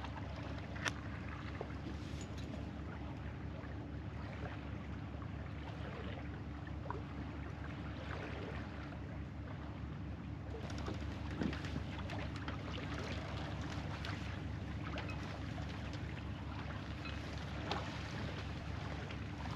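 A sailboat's engine running steadily, a low even throb under the wash of water, with a few small knocks and clicks scattered through.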